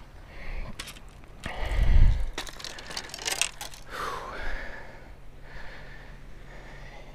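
Footsteps crunching over gravel, shells and concrete rubble, with scattered clicks of fishing gear, a heavy low thump about two seconds in, and a short breathy sound near the middle.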